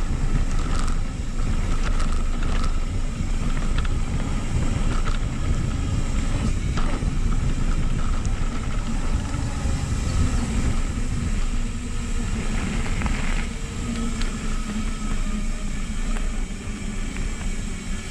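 Mountain bike rolling downhill on a dirt and gravel trail: steady rumble of knobby tyres on the ground and wind on the microphone, with scattered clicks and rattles from the bike and loose stones.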